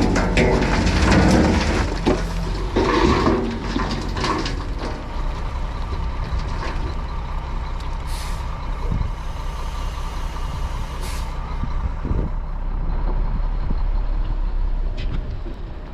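Diesel engines running steadily, a skid steer's and a dump truck's, with clanking and rattling in the first few seconds. Two short hisses of air come about eight and eleven seconds in, typical of a truck's air brakes.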